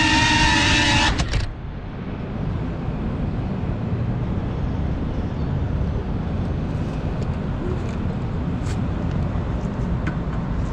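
FPV quadcopter's motors and propellers whining in a steady high pitch, cutting off suddenly about a second in as the drone sets down and disarms. After that, a low steady outdoor rumble with a few faint clicks.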